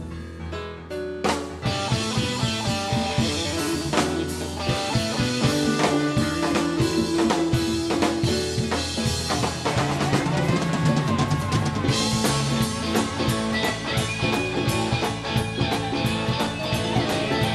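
Live rock band playing: drum kit, electric guitars, keyboards and hand percussion. The full band comes in about a second and a half in after a thinner opening, and a quick, even run of drum hits drives the last few seconds.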